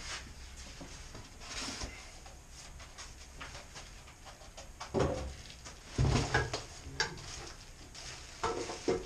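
Packaging being handled: cardboard and plastic-bag rustling and crinkling as a bagged forge blower is lifted out of its box, with several dull knocks about halfway through and again near the end.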